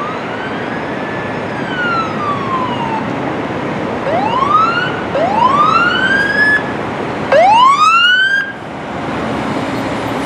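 Fire department truck's siren: a falling wail, then three quick rising whoops, the last the loudest, before it cuts off abruptly, leaving the truck's engine and passing traffic.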